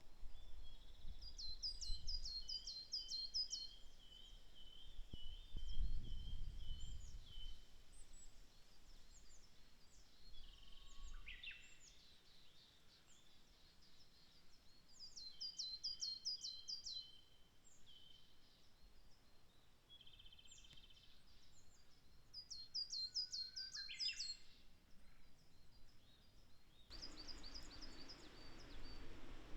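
Coal tit singing: short bursts of quick, high, repeated notes, given four times with pauses between. A low rumble about six seconds in.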